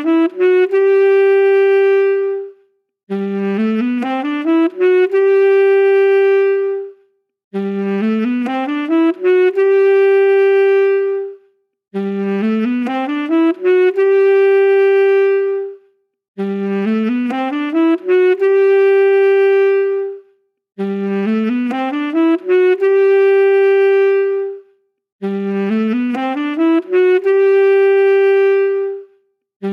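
Saxophone playing one short phrase over and over: a quick rising run of notes that ends on a long held note, repeated identically about every four and a half seconds with a brief gap between repeats, like a loop.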